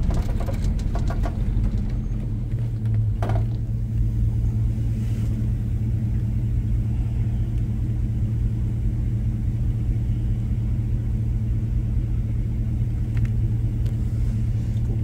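Vehicle engine idling steadily, a low even hum heard from inside the cab.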